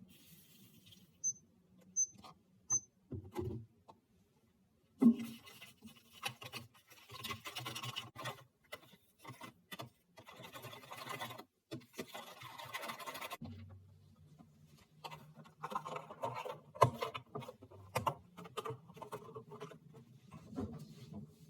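Three short electronic beeps from a kitchen appliance, then irregular clatter, knocks and rustling of food being prepared.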